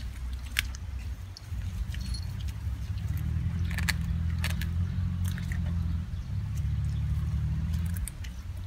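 A low, steady engine hum from a motor vehicle, swelling from about three seconds in and fading near the end, with small clicks and crinkles of a foam food box as a man eats from it with his fingers.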